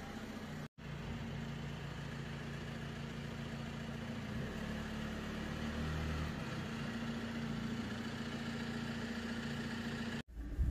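An engine idling steadily in the background: a low, even hum that cuts out briefly about a second in and again near the end.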